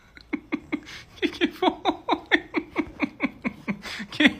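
Person laughing hard: a rapid run of 'ha' pulses, about five a second, each falling in pitch.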